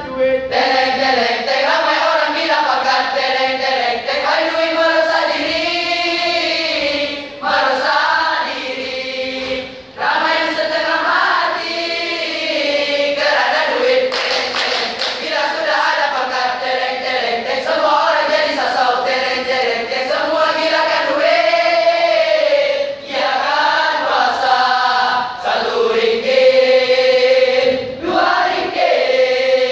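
Choir of teenage boys singing together, with a short run of hand claps about halfway through.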